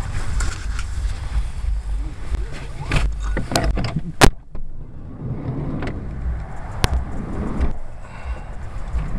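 Car cabin rumble from the engine and road while riding, with a few sharp knocks, the loudest about four seconds in and another near seven seconds.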